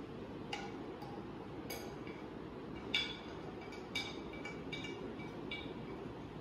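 A spoon clinking against a bowl and spice containers while spice powders are added for a marinade: about ten light, ringing clinks, the sharpest about three and four seconds in, over a steady low hum.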